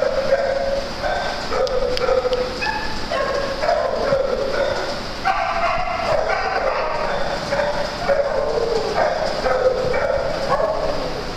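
Several dogs barking and yipping over one another, a near-continuous string of short calls.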